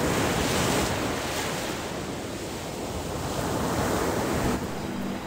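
Baltic Sea surf washing onto a sandy beach, rising and falling in swells, with wind rumbling on the microphone. The sound drops suddenly about four and a half seconds in.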